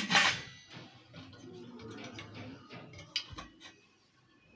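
Cookware from a new pot set clattering as it is handled, loudest right at the start, then quieter handling with a sharp click about three seconds in.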